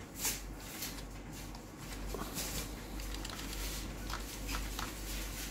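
Computer keyboard keys clicking at irregular intervals as a password is typed, over a steady low hum.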